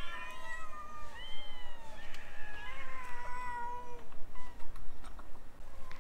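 Several stray cats meowing over one another, drawn-out calls that rise and fall in pitch, as they wait to be fed.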